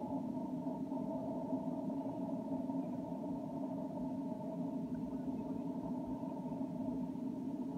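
A steady, muffled hum that does not change and has no distinct events.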